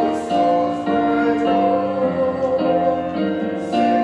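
Music: keyboard chords, piano-like, held and changing every half second or so.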